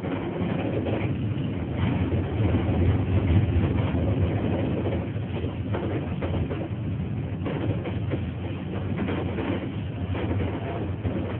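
Konstal 105Na tram running along street track, heard from inside the front of the car: a steady low drone of motors and wheels with irregular clicks and knocks from the rails.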